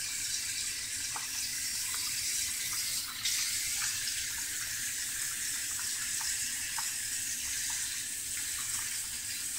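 Water running from a kitchen tap into a stainless steel sink, a steady hiss, with faint small clicks as fingers stir a baking soda and toothpaste paste in a bowl.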